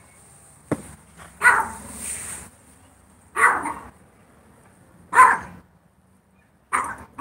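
A dog barking four times, about every two seconds, with a short sharp click just before the first bark.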